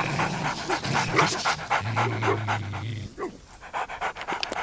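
Two bulldogs panting quickly and heavily, about four or five breaths a second, with a low steady hum underneath through the middle.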